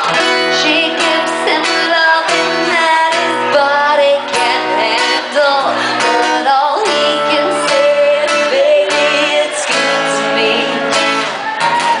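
Live acoustic song: a woman singing, with held notes that waver, over a steel-string acoustic guitar being strummed and picked.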